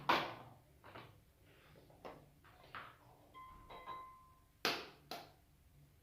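Kitchen bowls and utensils knocking and clinking: a string of sharp knocks about once a second, a brief clear ringing tone about three and a half seconds in, and two loud knocks about half a second apart near the end.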